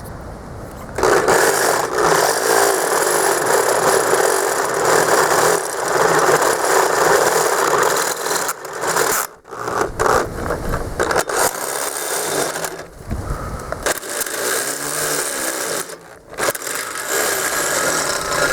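Power drill boring out the too-small bolt holes in a lawnmower wheel hub. The bit grinds and scrapes in long runs that start about a second in, with a few short breaks.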